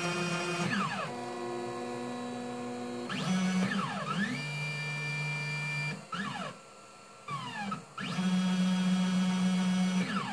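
Stepper motors driving a 3D printer's Z lead screws during automatic bed levelling: a steady pitched whine that holds at one pitch, then glides up or down to another as the motors speed up, slow down or change direction. The whine stops for about a second and a half a little past the middle, then starts again.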